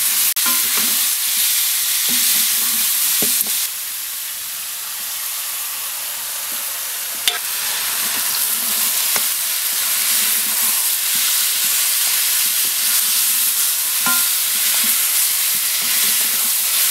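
Mutton pieces, with chopped tomatoes, frying and sizzling in a metal kadai, stirred with a wooden spatula that scrapes and knocks against the pan. The sizzle drops quieter about four seconds in and picks back up a little before halfway.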